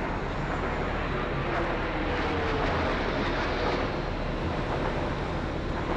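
Jet aircraft engine noise: a steady, loud rushing sound, with a faint tone sliding down in pitch around the middle.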